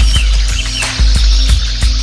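Background music with a heavy, steady bass beat and crisp percussion clicks, with a few short high chirps near the start.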